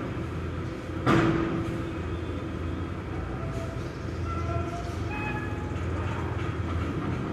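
Tracked excavator's diesel engine running steadily under load, with a sharp metal clank that rings briefly about a second in.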